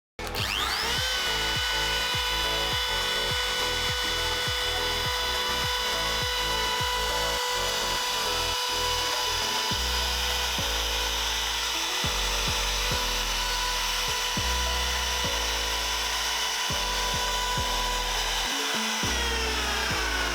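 Electric power tool's motor switched on, its whine rising quickly to speed, then running steadily at full speed. The pitch starts to fall near the end as it winds down.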